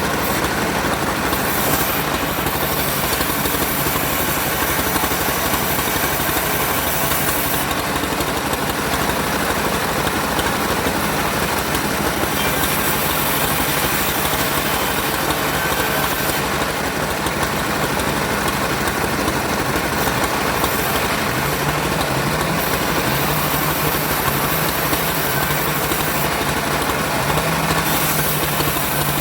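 An engine running steadily at a constant speed. About two-thirds of the way through, a low hum comes in that wavers slightly.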